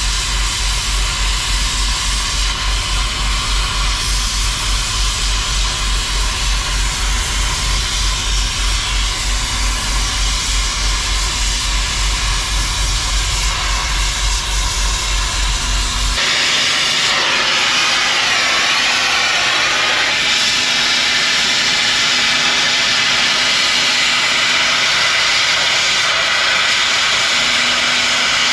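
Oxy-fuel cutting torch hissing steadily as it cuts an old brake spider off a trailer axle, sparks flying. A fast low throbbing runs under the hiss until about sixteen seconds in, after which the hiss is brighter.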